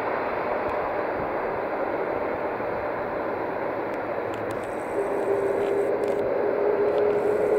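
Jet engines of a Boeing 747-400F freighter running as it rolls along the runway: a steady rushing noise, with a steady tone coming in about five seconds in as the sound grows a little louder.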